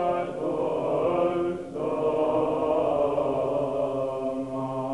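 Orthodox church chant: voices singing long, slowly moving notes over a steady low held note.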